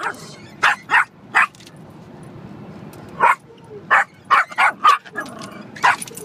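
Small dog barking sharply at the moving windshield wipers: a quick run of three barks, a pause of about two seconds, then about six more in close succession. A steady low hum of the car's road noise runs beneath.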